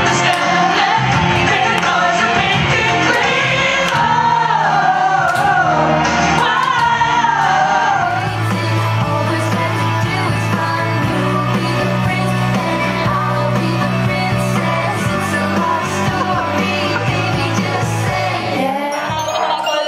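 Amateur karaoke singing into a microphone over a backing track played through a party speaker. First a man sings, then after a cut about six to eight seconds in a girl sings over steady, held bass notes.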